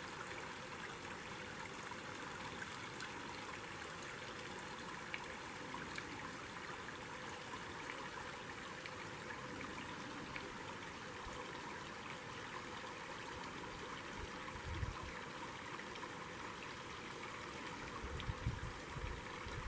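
Shallow creek trickling steadily over rocks. Near the end there are a few low rumbles.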